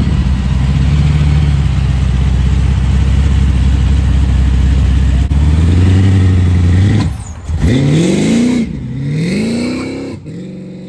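Supercharged V8 of a blue Chevy Nova rumbling low as the car rolls out, growing louder, then accelerating hard with the engine pitch climbing twice before it fades as the car drives off.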